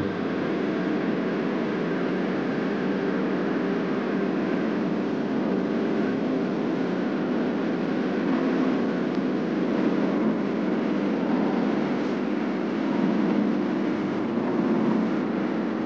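Steady drone of a moving vehicle, an even engine-and-travel noise with no clear rhythm.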